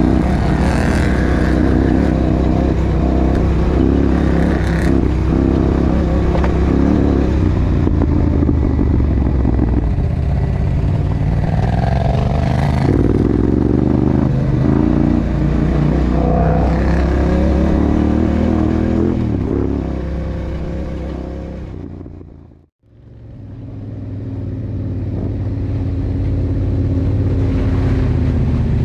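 Engine of a Yamaha sport quad running under way, its pitch rising and falling with the throttle. About two-thirds of the way through the sound fades out completely and fades back in.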